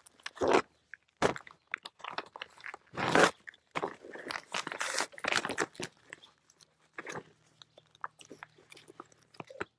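Duct tape being pulled from the roll and pressed along the edge of a laminated plastic shopping bag, with the bag crinkling as it is handled, in short irregular bursts.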